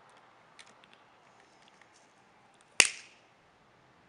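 Small hand cutters snipping excess wick on a rebuildable dripping atomizer: one loud, sharp snip about three seconds in, after a few faint clicks of handling.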